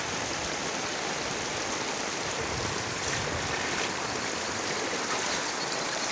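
Floodwater rushing along a street in heavy rain: a steady, even wash of noise from the current and the downpour.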